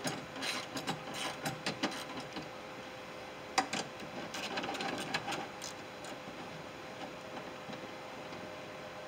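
Hand work inside a Ford F150 door shell: small clicks, taps and rattles of a hand tool and regulator parts against the door's sheet metal, with one sharper click about three and a half seconds in. The handling noises die down after about six seconds, leaving a steady faint hum.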